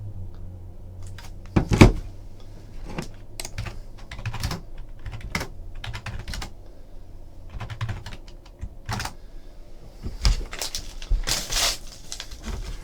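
Irregular light clicks and taps with a louder knock about two seconds in and a short rustling hiss around eleven seconds in.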